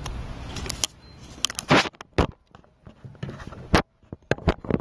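Handling noise as a Canon PowerShot S95 point-and-shoot is taken off one mount and fitted onto a Joby Gorilla Pod video head: a string of sharp knocks and clicks from the camera and plastic mount parts. A low hum stops about a second in.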